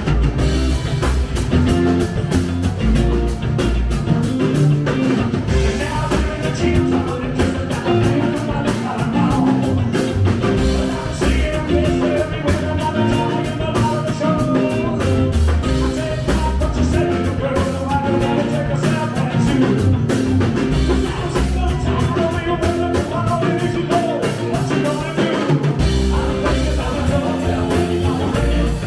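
A rock band playing live, with a driving drum kit and a singing voice over the band.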